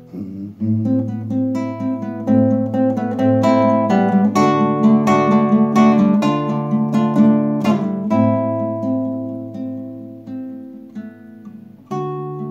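Classical guitar played solo without singing: a picked melody over held bass notes that dies away, then a new strummed chord near the end.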